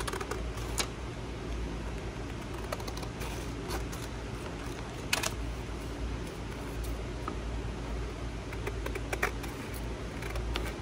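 Scattered light taps and clicks of paper and craft tools being handled and set down on a glass-topped grid mat, the loudest about five seconds in, over a steady low hum.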